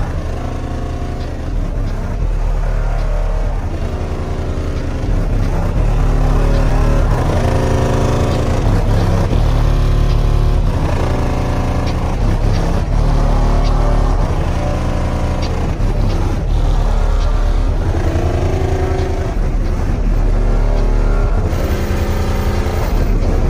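A car audio system playing bass-heavy music loudly through eight Trinity Audio 12-inch subwoofers, with deep bass notes that change about every second in a repeating pattern.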